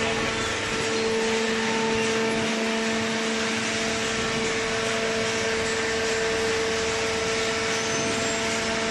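Hydraulic cardboard baler running: a steady machine hum with a strong low tone and its higher overtone over a constant mechanical noise.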